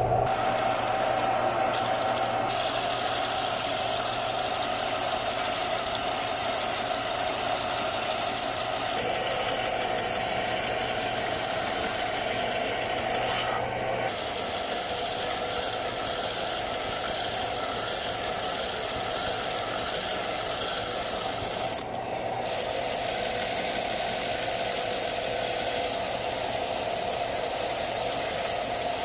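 Central Machinery benchtop belt sander running steadily, a motor hum under the hiss of the moving abrasive belt. Near the end a steel cutting blade is held flat against the belt to sharpen it.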